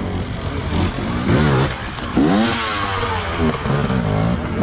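Enduro motorcycle engine revved hard in repeated bursts, its pitch sweeping up and falling back several times.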